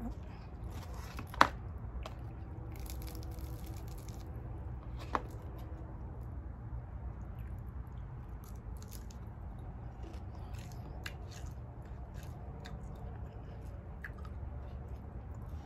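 A person chewing and biting food close to the microphone, with soft crunching and wet mouth sounds. Two sharp clicks stand out, the louder about a second and a half in and another about five seconds in. A steady low hum runs underneath.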